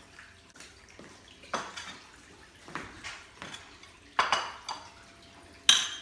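Spoon clinking and scraping against a bowl in a series of separate strokes, the loudest near the end, as sugar is worked into the potato mixture.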